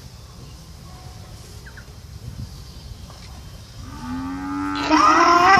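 Faint low background noise, then about four seconds in a cow begins a long, loud moo that swells and is still going at the end.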